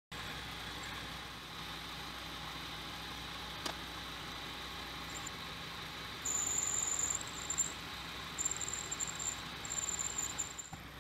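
Small metal lathe running with a steady hum and hiss. From about six seconds in, the turning tool cuts the spinning workpiece in three stretches, each a high-pitched squeal, with a single click before the cutting starts.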